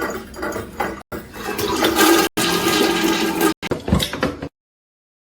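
Rushing water with a steady hum under it, broken by brief cuts and stopping abruptly about four and a half seconds in.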